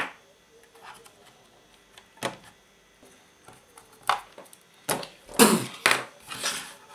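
Irregular knocks and clacks of hand tools and a clock radio's plastic cabinet being handled and set down on a workbench. There are several sharp single knocks, then a louder cluster of clatter about five and a half seconds in.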